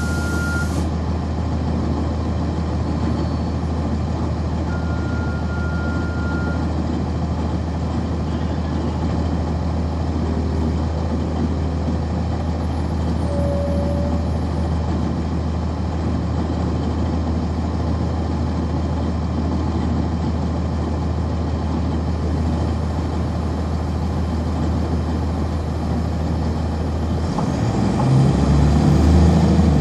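The Cummins ISC diesel engine of a 1999 NovaBus RTS city bus, heard from on board, running steadily with a low hum. The sound grows louder and rougher near the end. A thin high beep sounds at the start and again about five seconds in.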